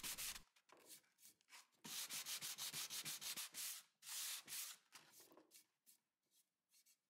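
Hand sanding of a dried wood-filler patch on a veneered wooden drawer front with a sanding block: quick back-and-forth rasping strokes in short runs, about six a second, with a longer stroke about four seconds in and only a few faint scrapes after about five seconds.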